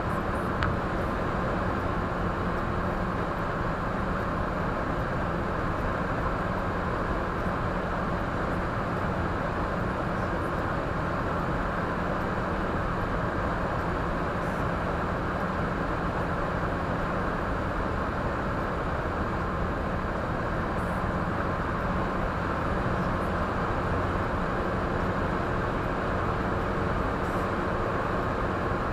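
Steady road and tyre noise with engine hum inside a moving car's cabin, with a faint steady whine.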